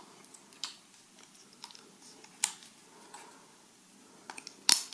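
Scattered light plastic clicks and taps from hands pressing parts into the open battery-and-SD-card compartment of a GoPro Fusion camera. A few small ticks come near the end, then one sharp, louder click.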